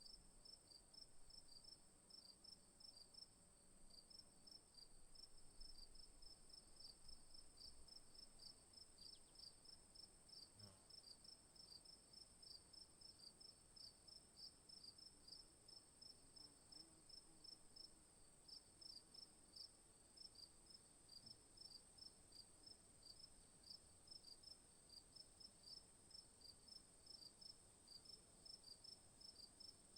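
Faint insect chorus: quick, evenly repeated high chirps with a steady high-pitched whine behind them.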